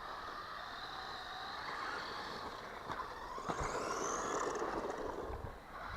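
Electric motor and drivetrain of a 1/12-scale 4WD RC car whining, the pitch rising and falling as the throttle is worked. A couple of short knocks come near the middle.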